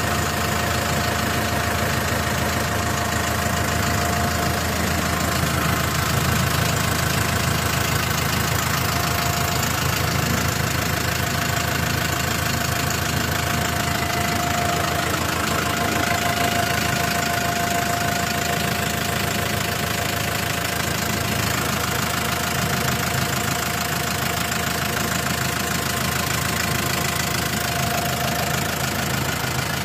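New Holland TS6020 tractor's diesel engine idling steadily at an even speed, heard up close.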